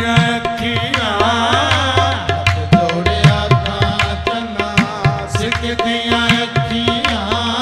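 Live manqabat performance in qawwali style: harmoniums hold sustained chords over steady hand-drum strokes. A male singer's ornamented vocal run comes in about a second in and again near the end.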